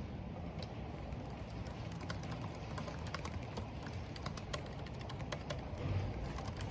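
Computer keyboard being typed on: quick, irregular keystroke clicks, over a steady low rush of wind and rain.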